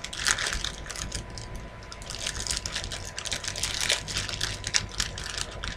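Putty with foam beads mixed in being squeezed and kneaded between the fingers, giving an irregular stream of small crackles and squishes.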